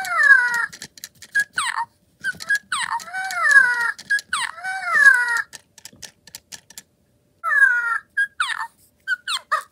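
Original 2016 WowWee Fingerlings baby monkey toys chattering through their small speakers as their heads are petted: a run of squeaky, falling coos and chirps with short pauses and light clicks between them. This is the toy's 'show you love' reaction to head petting.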